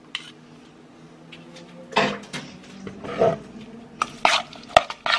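A metal spoon stirring a sticky chili-paste and onion marinade in a non-stick pot, scraping and clinking against the pot. It starts about two seconds in, with a faint steady hum underneath.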